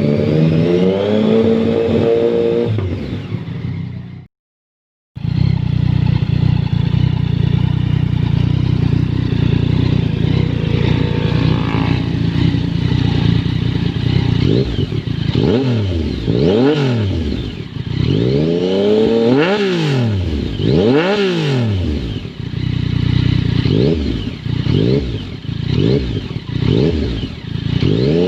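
Yamaha MT-09 three-cylinder engine, stationary and revved through its exhaust. The revs fall back at the start and the sound cuts out briefly about four seconds in. It then idles steadily before a series of throttle blips, each rising and falling, that come quicker and shorter toward the end.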